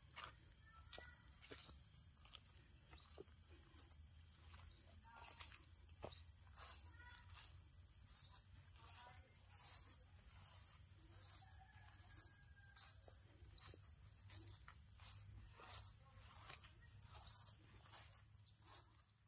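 Faint outdoor ambience: a steady high-pitched insect trill with faint short chirps and clicks scattered through it, over a low rumble.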